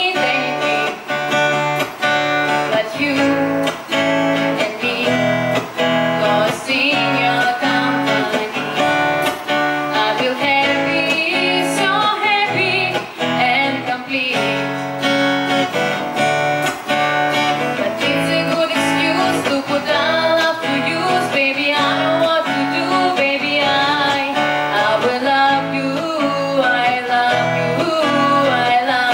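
Acoustic guitar strummed in a steady rhythm, with a woman singing along.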